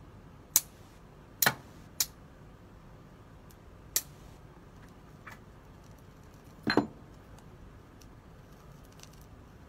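Flint struck against a steel fire striker (hi-uchi-gane), a string of sharp metallic clacks at uneven intervals, the loudest about seven seconds in with a brief ring. It is striking sparks onto the char tinder (hokuchi) laid on the flint to light it.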